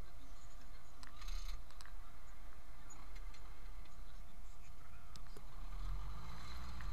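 Zetor 10145 tractor engine running steadily, heard from inside the cab, with scattered clicks and rattles from the cab. The engine note grows louder about six seconds in.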